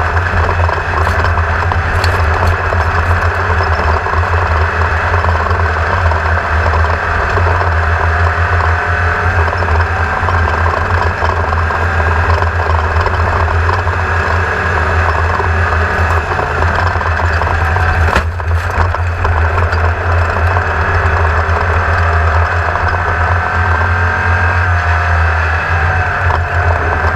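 Engine running steadily at a near-constant speed, a loud low hum that shifts slightly in pitch near the end.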